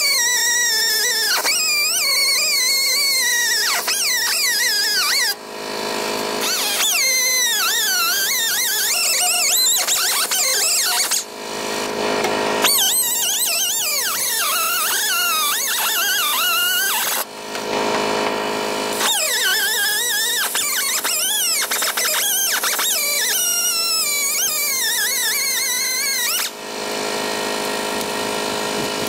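A small cut-off tool's abrasive disc cutting the rusty front sheet metal of a 1960 VW Beetle body, squealing with a pitch that wavers up and down. The squeal drops out briefly three times, leaving a steady hiss, and stops near the end.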